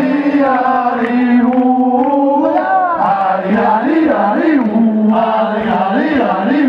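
A crowd singing a chant together in unison, long held notes alternating with short rising-and-falling syllables.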